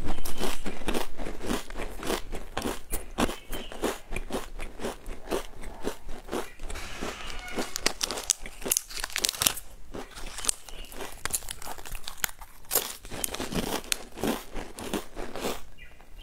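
Close-up crunching and chewing of a chocolate-coated round snack: a dense, irregular run of crisp bites and chews.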